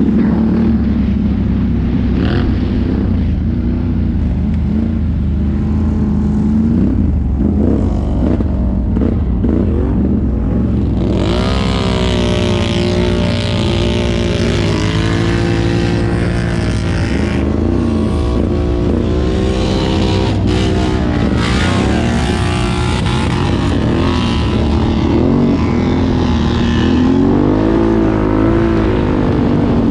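Can-Am ATV engine running on a trail ride, its pitch rising and falling as the throttle is worked. From about eleven seconds in, a hiss lies over the engine for some ten seconds, then fades.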